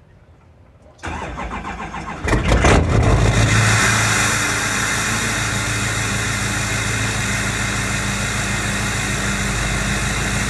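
2013 Chevrolet Silverado 2500HD's 6.6-litre LML Duramax V8 turbo-diesel cold-starting through a 5-inch MBRP straight pipe with no DPF or muffler. The starter cranks for about a second, the engine catches a little over two seconds in with a brief loud flare, then settles into a steady, loud idle.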